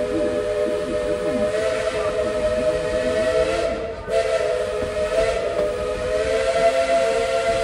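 Steam locomotive's chime whistle blowing a long, steady chord of several notes, broken briefly about four seconds in and then sounding again.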